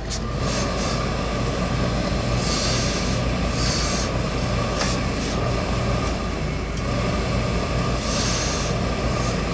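Industrial hose-fed steam iron letting out several short hisses of steam over a steady machine hum.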